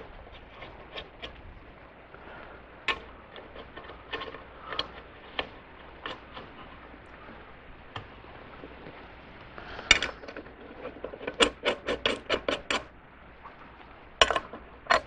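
Small metal clinks, knocks and light scraping as steel lug nuts are handled and fitted onto wheel studs. A rapid run of sharp clicks comes about two-thirds of the way through.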